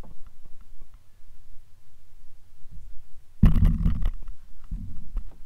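Flats skiff being poled across calm shallow water: light ticks of water against the hull, then a loud knocking slosh about three and a half seconds in and a softer one a second later as the push pole is planted and pushed.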